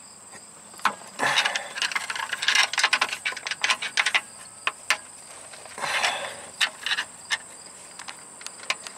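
Scattered metal clicks and knocks with a few short scrapes, as a power steering rack is shifted by hand against its mount to line up the bolt hole.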